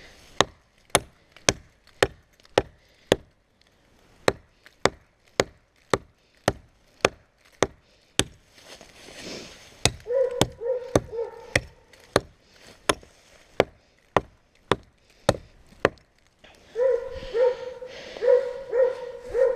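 Hatchet chopping into a small tree trunk, steady strokes about two a second that stop about three seconds before the end; these are the felling cuts just before the tree comes down. Two spells of short, repeated pitched animal calls come in over the chopping, in the middle and near the end.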